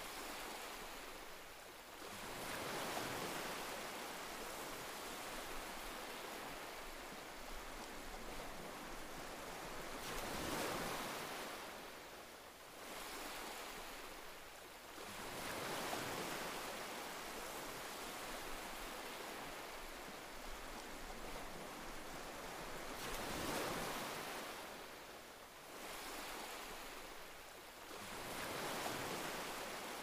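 Ocean surf: waves break and wash in, each surge swelling and fading about every five to seven seconds.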